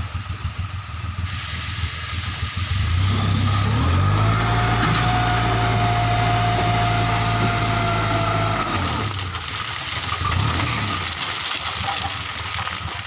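Dump truck's diesel engine revved up to drive the hydraulic tipping hoist, rising in pitch about three seconds in, holding steady with a whine over it, then dropping back to idle about nine seconds in, while the bed lifts a sticky load of earth and stones. A hiss starts about a second in.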